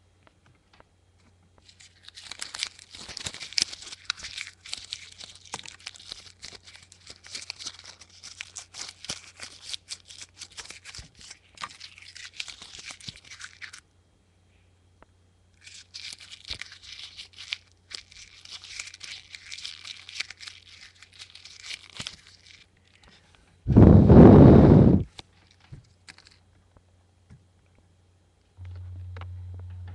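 Dense crackling and rustling, like something being crinkled or scraped close to the microphone, in two long stretches. Later comes one very loud, full-range blast about a second long, over a low steady electrical hum.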